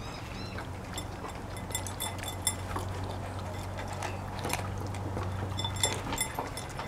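Poodle eating chopped raw vegetables and fish from a bowl: irregular wet chewing and crunching with many small clicks and light clinks against the bowl, over a steady low hum.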